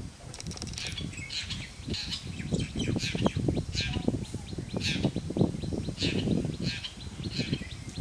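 Wild birds calling: a run of short, high chirps repeated every half second or so, over a low rumbling noise.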